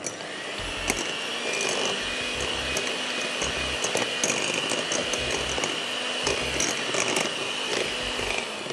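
Anex electric hand mixer running steadily with a constant high whine, its twin beaters whipping batter in a glass bowl.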